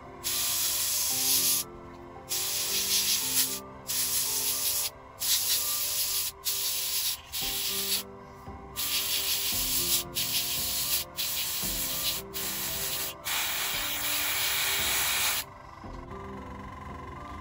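Dual-action airbrush spraying paint in about eleven short bursts of loud air hiss, each lasting one to two seconds with brief pauses between, stopping about fifteen seconds in. Quiet background music plays underneath.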